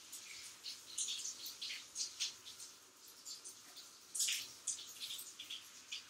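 Water from a handheld shower head splashing and spattering onto a mastiff's coat in a shower stall, in short irregular hissy spurts several times a second.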